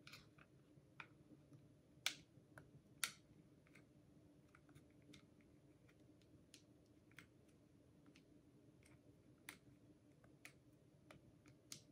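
Small clicks and taps from handling a cordless hair clipper and its USB charging cable, with two sharper clicks about two and three seconds in; otherwise near silence.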